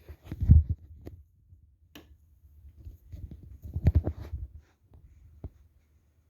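Low rumbling gusts as the downdraft of a running Harbor Breeze Armitage ceiling fan buffets the microphone, swelling about half a second in and again from about three seconds in. There are a couple of short clicks.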